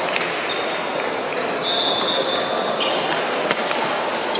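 Badminton hall ambience: a steady babble of many voices, with sneakers squeaking briefly on the wooden court floor and a single sharp click about three and a half seconds in.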